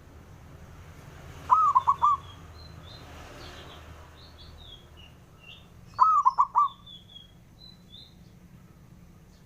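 Zebra dove (perkutut) cooing: two short phrases of three or four quick notes each, about four seconds apart. Faint high chirps of small birds run underneath.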